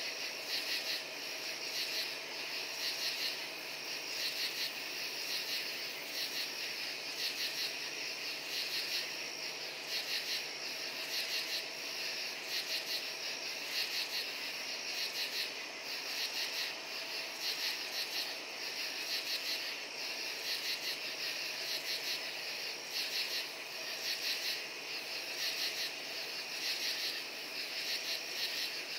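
Night chorus of crickets and katydids calling together, their calls coming in short pulsed bursts that repeat about once a second without a break.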